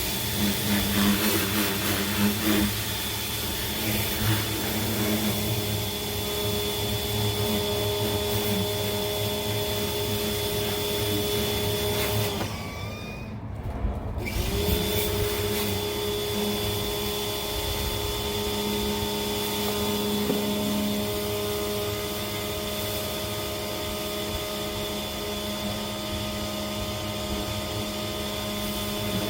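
Greenworks 1700 psi electric pressure washer running steadily under spray. About twelve seconds in, its motor winds down and stops for about two seconds, then starts up again and runs steadily on.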